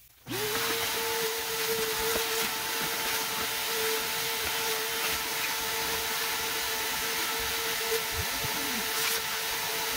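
Vacuum cleaner switched on about a third of a second in, then running steadily with a loud hiss of air and a steady motor whine as its hose sucks up the dust left on the CNC machine after cleaning with compressed air.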